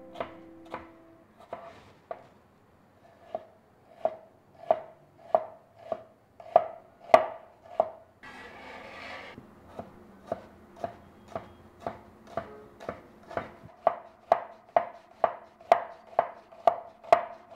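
Kitchen knife finely chopping red onion on a cutting board: a steady run of sharp strokes, about two a second, quickening slightly in the second half, with a brief scraping noise about eight seconds in.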